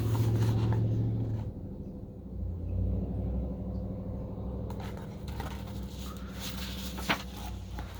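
Low steady hum and rumble with no speech, and a single short click about seven seconds in.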